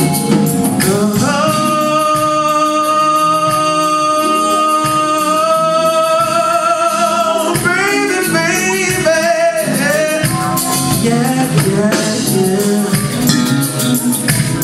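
A live soul band with a lead singer: the singer holds one long, steady note from about a second and a half in for roughly six seconds, then breaks into quick runs up and down, with the band playing under it throughout.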